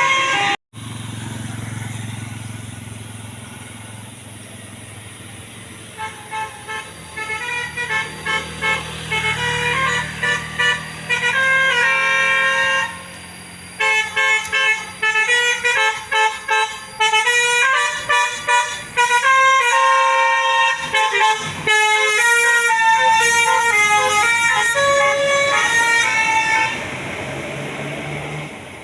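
Bus telolet musical air horn of the Basuri type playing a tune of quick, short multi-tone toots that step up and down in pitch. It starts about six seconds in after a low rumble, pauses briefly midway, and stops shortly before the end.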